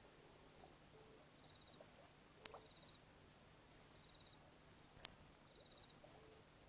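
Near silence: faint night ambience with short high chirps repeating in quick pulsed trains every second or so, and two sharp clicks, one about halfway through and one near the end.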